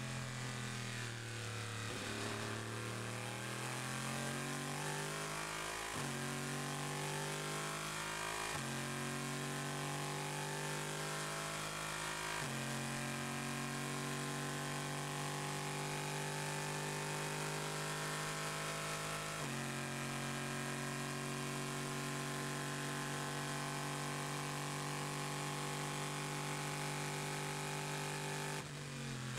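Chevrolet Corvette C7.R race car's 5.5-litre V8 heard from the cockpit under full throttle. The engine note dips, then climbs through the gears, dropping abruptly with four upshifts. After the last shift it holds almost steady revs at speed and lifts off right at the end.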